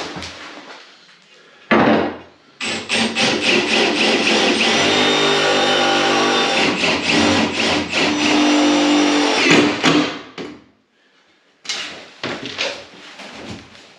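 Cordless drill-driver running in a brief burst, then steadily for about eight seconds, driving screws through a metal leg batten into the underside of a bath. It is followed near the end by a few knocks and clicks.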